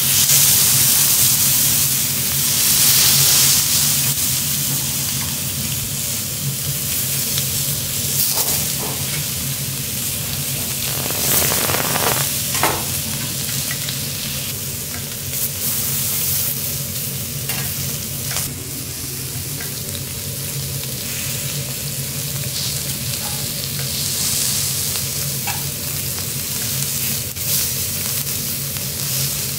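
Seafood sizzling on a hot teppanyaki iron griddle, loudest in the first few seconds, with occasional short clicks of the metal spatula and tongs against the plate.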